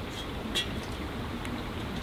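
Small wood fire crackling in a portable fire pit, a few faint snaps over a steady outdoor hiss, with one sharper knock about half a second in as a camp kettle is set down onto the fire pit.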